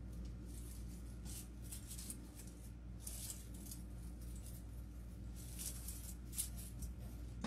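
Faint rustling and scratching of artificial grass and fern stems being worked into a grapevine wreath. It comes in several short, irregular bursts over a steady low hum.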